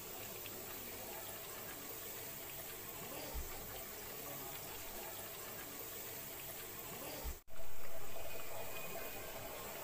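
Onion fritters deep-frying in hot oil: a steady crackling sizzle, with a soft knock or two from the spatula. About seven and a half seconds in the sizzle breaks off for an instant, comes back louder, and then gradually eases.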